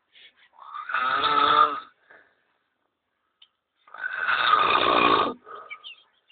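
A man snoring loudly in his sleep: two long snores about three seconds apart, with only faint short sounds between them.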